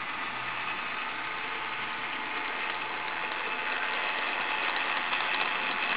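HO scale diesel switcher locomotive running across a double crossover: its small motor and gears whir, getting louder as it comes closer, with light clicks from the wheels crossing the crossover's rail gaps and frogs in the second half.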